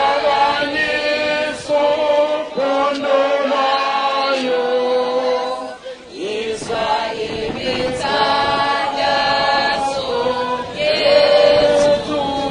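A crowd of many voices singing together in a chant, holding long notes in phrases, with a brief break about halfway through.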